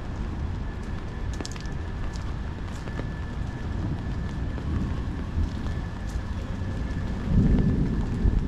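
Steady rain falling, with scattered drop ticks over a low rumble. A louder low rumble swells briefly about seven seconds in.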